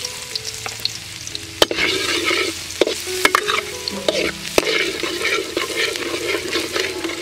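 Minced garlic sizzling in hot oil in a steel wok, stirred and scraped with a metal spatula. The sizzle grows louder about a second and a half in, and the spatula clinks sharply against the wok several times.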